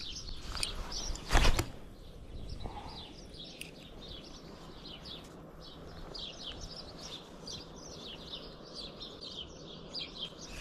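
Small birds chirping over and over over a low steady background rumble, with one loud knock about a second and a half in.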